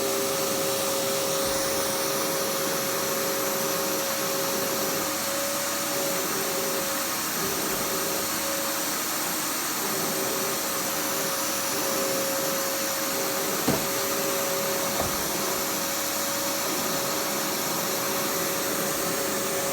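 Household vacuum cleaner running steadily, its motor giving a constant whine over the rush of air. There are two brief knocks about two-thirds of the way through.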